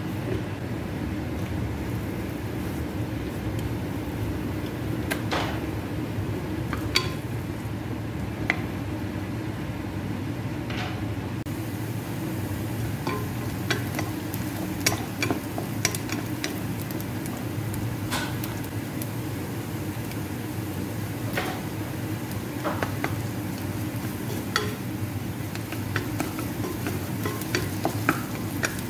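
Chopped onion frying in oil in a nonstick saucepan while a spatula stirs it, scraping and tapping the pan in scattered clicks that come more often in the second half. A steady low hum runs underneath.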